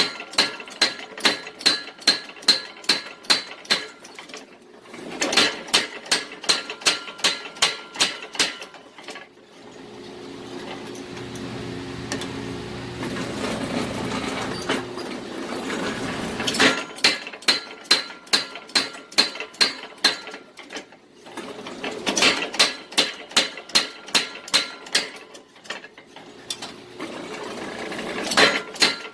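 Rapid hammer blows forging a steel spring on an anvil, about four a second in runs of several seconds, with the anvil ringing after each blow. In the middle, the hammering stops for about six seconds and a steadier rushing noise swells, then cuts off before the hammering resumes.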